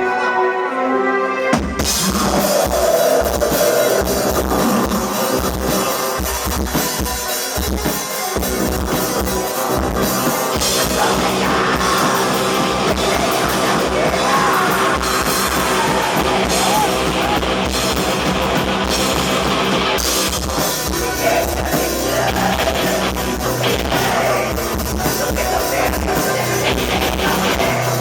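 Live black metal band with distorted guitar, bass, keyboards and drums. A thin, quieter passage cuts to the full band less than two seconds in, with rapid kick-drum strokes under it, and the full band keeps playing.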